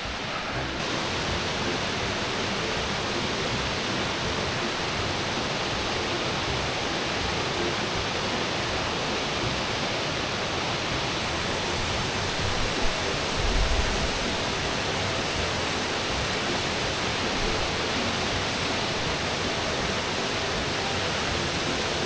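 Nachi Falls, a tall single-drop waterfall, giving a steady rush of falling water. A brief low rumble comes through about two-thirds of the way in.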